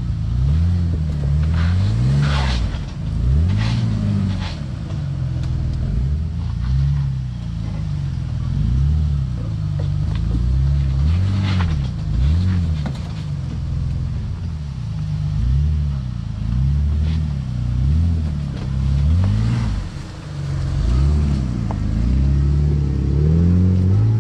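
Jeep engine revving up and falling back again and again as it crawls over a trail obstacle, with a few sharp knocks.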